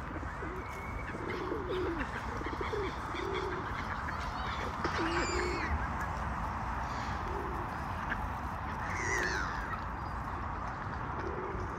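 Feral pigeons cooing: short low coos repeating every second or two, with a few higher bird calls now and then over steady background noise.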